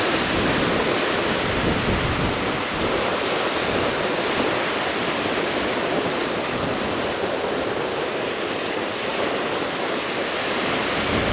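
Rough sea and strong wind, heard as a steady rushing noise, with wind buffeting the microphone.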